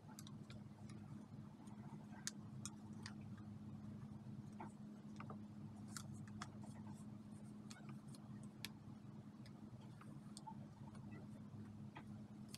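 Faint, irregular ticks and light crackles of paper pages and clear plastic sleeves being handled, over a steady low hum.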